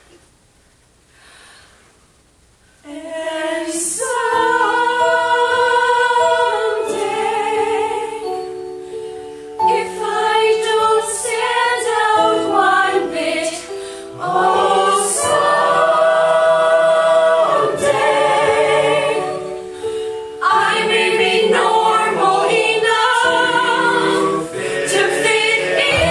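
Mixed ensemble of women's and men's voices singing a musical-theatre number in harmony, coming in loudly about three seconds in after a short quiet stretch, with held chords that change every second or two.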